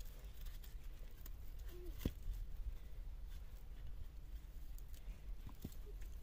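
Faint handling sounds of cord being wrapped and tied around the joint of two wooden poles: scattered small ticks and rustles, with one sharp knock about two seconds in, over a steady low rumble.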